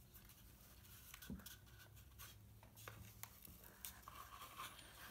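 Faint scraping and light clicks of hands handling a cardboard and craft-foam action figure, moving its joints, over a low steady hum.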